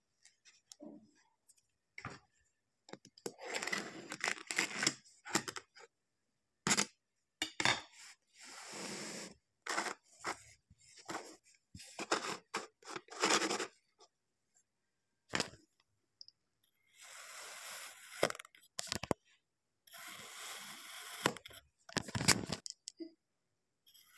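Kinetic sand being pressed into a metal cookie cutter, scraped and sliced with a knife: soft crumbly scraping and crunching in short bursts with silent gaps between them, running longer in the last few seconds.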